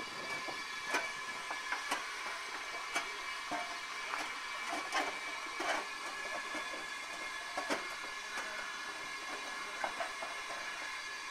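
Steam breakdown crane standing in steam: a steady hiss with irregular sharp metallic clicks and knocks.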